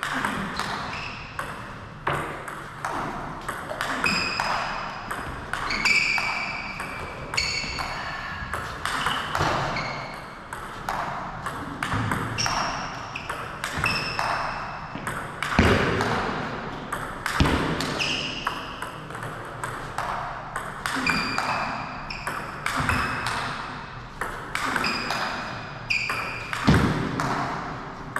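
Table tennis rally between heavy topspin drives and long-range backspin chops made with long-pimpled rubber (Curl P4): celluloid-type ball struck by the bats and bouncing on the table, a sharp ringing ping or click every half second to a second.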